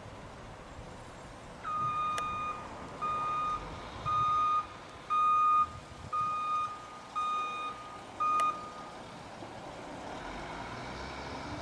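Backup alarm of a Crane Carrier Company integrated rear loader garbage truck beeping seven times, about once a second, as the truck goes into reverse, over the truck's steady running noise.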